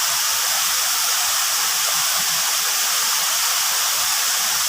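Waterfall rushing steadily into its pool, an even hiss strongest in the high end.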